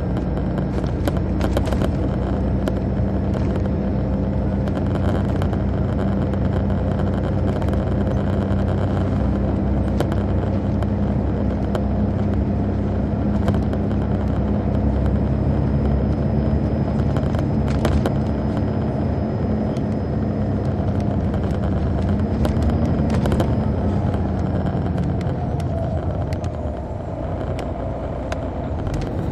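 Detroit Diesel Series 60 engine of an MCI D4000 coach running steadily under way, heard from the rear seats inside the bus, with occasional clicks and rattles. Near the end the engine note rises briefly, then falls away and gets quieter as the bus eases off.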